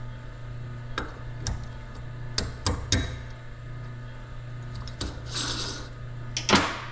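Small steel gear parts and snap-ring pliers clinking and tapping, several light clicks in the first three seconds and a louder clink about six and a half seconds in, with a brief rustle just before it, over a steady low hum.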